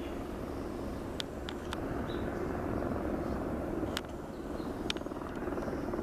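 Helicopter flying overhead, its rotor and engine a steady drone, with a few sharp clicks over it.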